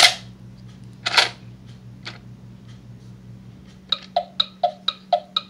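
Gemmy haunted alarm clock prop: a few sharp clicks, then near the end a quick run of about eight short pitched ticks, roughly three a second.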